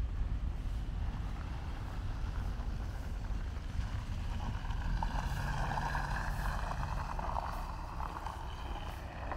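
Wind rumbling on the microphone outdoors, with a rushing noise that swells about halfway through and fades near the end.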